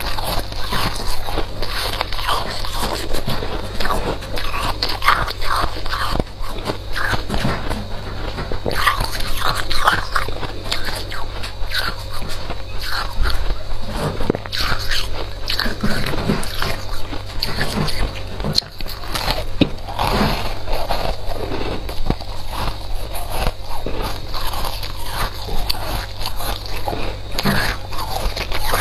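Chunks of freezer frost being bitten and chewed: a continuous run of crisp crunches and crackles.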